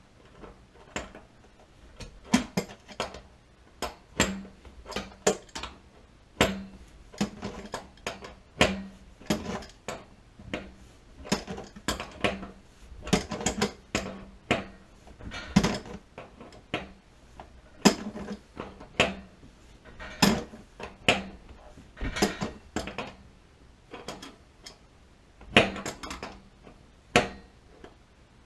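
Irregular metal clinks and knocks, several a second with short pauses, from hand tools working on metal pipe fittings during a water heater installation.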